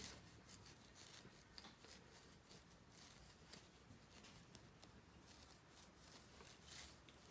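Near silence with faint rubbing and small scratchy ticks: a polishing cloth being worked over a sonic screwdriver replica prop.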